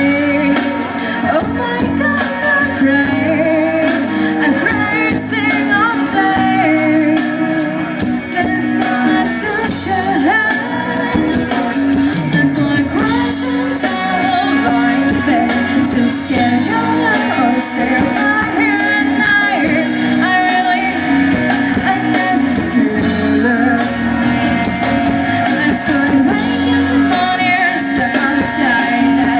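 Live band playing a song: a lead vocal sung over guitar and the band, loud and continuous.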